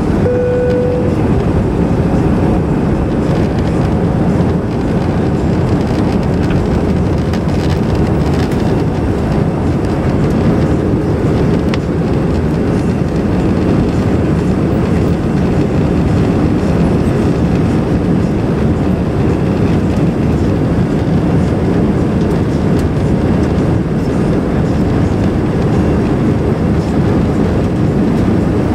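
Cabin noise of an Airbus A319-114 climbing out just after takeoff: its CFM56 engines running at takeoff thrust together with the rush of air, a loud, steady, low noise heard from a seat over the wing. A brief steady tone sounds about half a second in.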